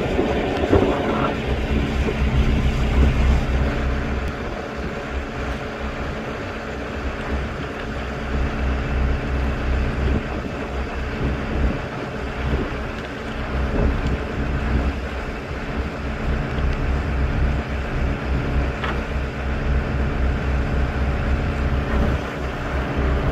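An engine running steadily at low speed, with wind buffeting the microphone.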